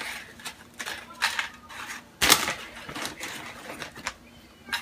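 Tortilla chips clicking and crackling as they are set down one at a time on a plate, a few irregular light clicks with one sharper crack a little past two seconds in.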